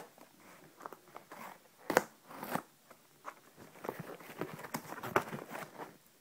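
A parcel being handled and opened by hand: a string of irregular knocks and clicks, the loudest about two seconds in, with rustling and scraping of packaging between them.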